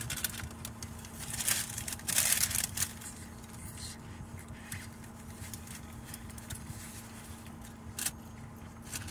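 Paper rustling and crinkling in a few short bursts as a tissue is rummaged for and pulled out, over a steady low hum in the car cabin.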